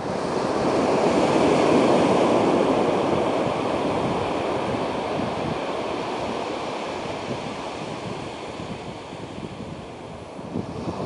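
Surf breaking and washing up a sandy beach, swelling about a second in, slowly ebbing, and rising again near the end, with wind buffeting the microphone.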